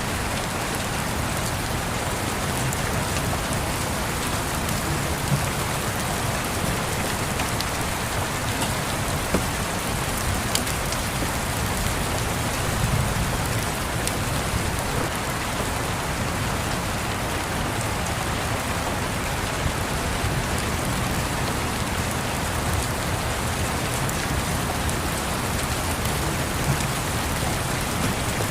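Steady rain falling, an even hiss of drops on surfaces, with a few brief sharp pops scattered over it.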